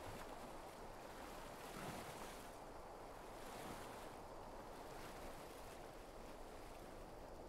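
Small waves washing softly on a pebble shore: a faint, steady wash that gently swells and ebbs.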